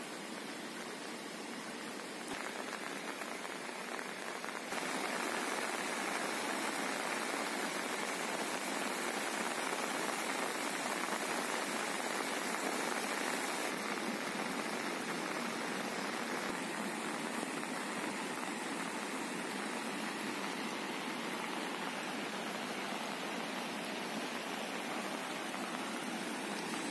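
Steady hiss of rain and a swollen, fast-flowing flood river rushing past, stepping louder about two seconds in and again about five seconds in.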